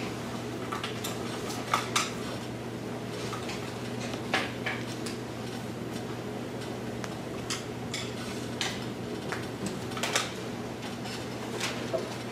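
Quiet classroom during a pause in a lecture: a steady low hum with scattered small clicks and taps from students at their desks.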